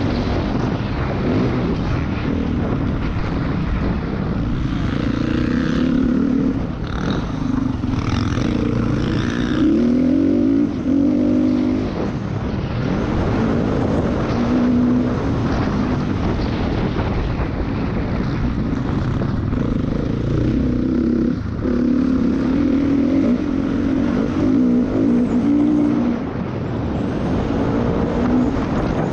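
Motocross dirt bike engine under hard throttle at speed, its revs climbing and dropping again and again, with wind rushing over the microphone.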